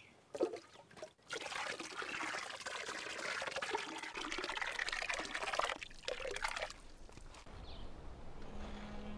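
Watery Stellera-root paper pulp is ladled up, then poured and splashed into a wooden papermaking frame floating in water. A few brief splashes come first, then several seconds of steady pouring and trickling. A low steady musical tone comes in near the end.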